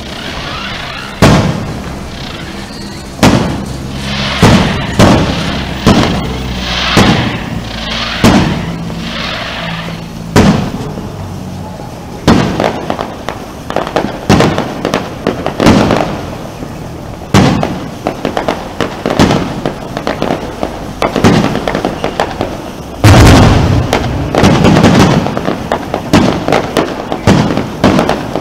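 Fireworks exploding overhead, a sharp bang every second or two, each dying away briefly after it. From about 23 seconds in, a dense run of rapid crackling bangs.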